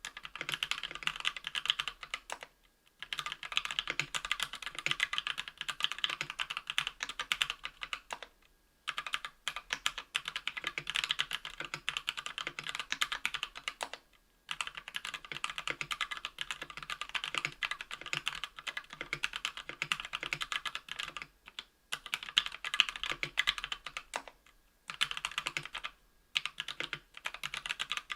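Fast typing on lubed Kailh BOX Red linear switches in an aluminum KBDfans Tofu 60% case with aluminum plate and Cherry-profile PBT keycaps: a rapid stream of keystroke clacks, broken by short pauses every few seconds.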